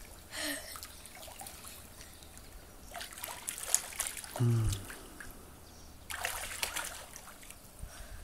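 Water splashing and trickling as a child swims in an above-ground pool, in three bursts of splashing: near the start, around three to four seconds in, and around six to seven seconds in. A short low sound with falling pitch comes about four and a half seconds in.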